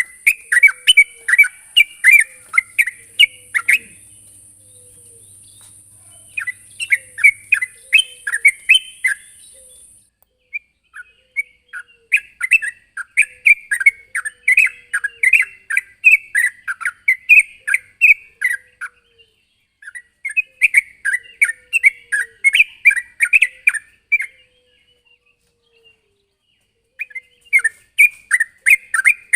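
Yellow-vented bulbul (trucukan) song: runs of quick, bubbly chirped notes lasting several seconds each, broken by short pauses, the longest about two seconds before the end. A faint high hiss sits under the first third.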